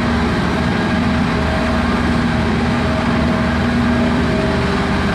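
A vehicle engine idling: a steady hum with a low, even throb.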